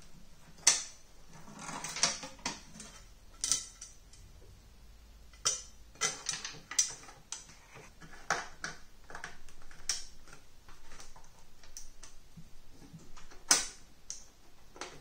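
Irregular sharp clicks, taps and knocks of hands handling a foam air filter and the plastic vented base housing of a moving-head stage light while the filter is fitted back in. The loudest knock comes near the end.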